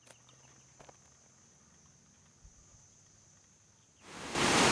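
Faint rural evening ambience with a steady high insect drone and a few soft clicks. Near the end, the loud, even rushing of a rocky stream fades in.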